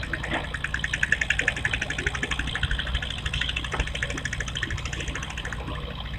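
A small engine running, with a fast, even chugging that fades out about a second before the end.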